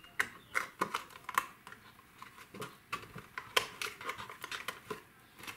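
Clear plastic box sheet being handled and folded along its pre-scored creases: irregular crackles and sharp clicks.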